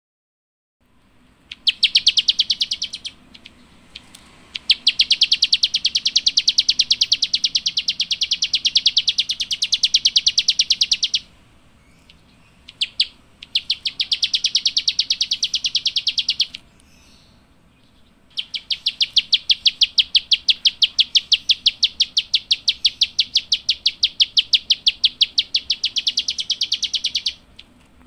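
A small songbird, the one Indonesian bird-keepers call 'klik-klik', calling in long runs of rapid, sharp, high clicking notes. There are four runs of several seconds each, with short pauses between them.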